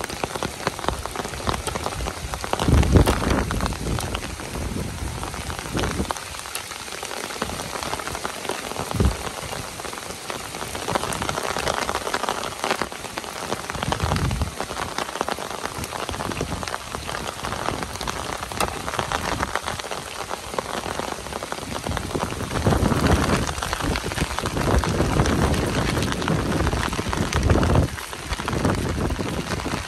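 Heavy rain falling steadily on the ground and surroundings, a dense even hiss. Now and then a short low thud breaks in.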